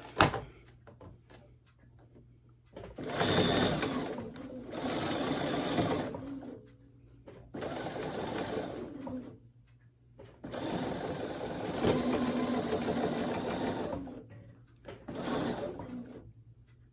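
Bernina sewing machine stitching binding through its binder attachment in four short runs with pauses between, going slowly and stopping to adjust. A single sharp click comes right at the start.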